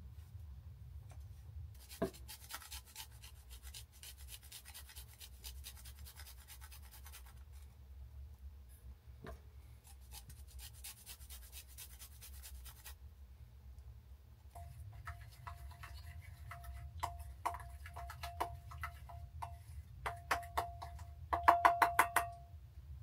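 Small hand grater rasping in two runs of rapid strokes over a steel bowl, then a metal spoon stirring in the steel bowl, clinking against its side with a ringing note, the clinks quickening and growing loudest near the end.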